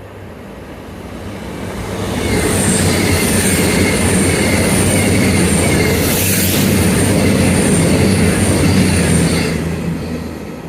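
Passenger train passing close by, its noise building over the first two seconds into a loud rumble with a steady low hum and a wavering high-pitched wheel squeal, then easing off near the end.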